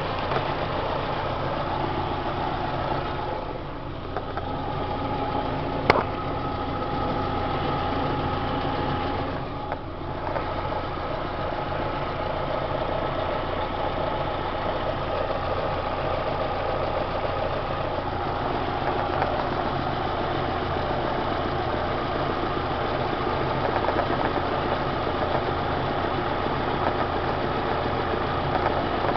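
Daewoo Lanos engine idling steadily, with one sharp click about six seconds in. The owner is recording it to show an unexplained extraneous noise from the car.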